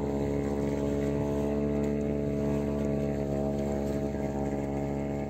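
Boat engine running at a steady speed while the boat is underway, a constant hum with a hiss of water alongside.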